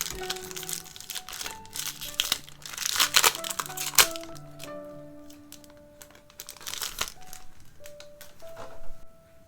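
Plastic foil wrapper of a Pokémon card booster pack crinkling and tearing over soft background music, busiest in the first half, then a few light clicks and rustles.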